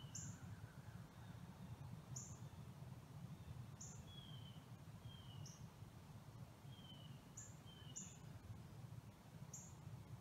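Small birds calling faintly in woodland: short high chirps every second or two, with softer down-slurred whistles in between, over a steady low rumble.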